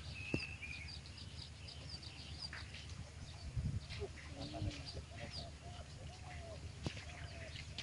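Birds calling: quick high chirps through the first half, then a string of short lower calls from about four seconds in, with a few sharp clicks.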